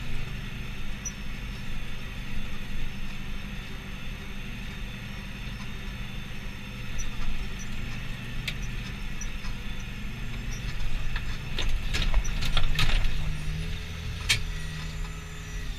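Valtra 8350 tractor's diesel engine running steadily, with a few sharp knocks and rattles about twelve seconds in and a deeper steady note joining just after.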